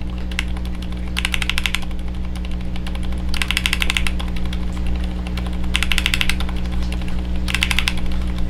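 Keys on an Akko M3W mechanical keyboard tapped in rapid bursts, five short runs of clicks, as the original and newly fitted Kailh Islet switches are compared by sound. A steady low hum runs underneath.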